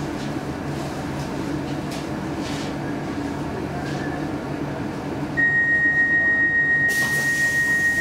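Stockholm Metro C15 train creeping to a stop at a platform, its low running rumble steady. About five seconds in, a loud steady high-pitched signal tone starts in the car and holds without a break: the door signal.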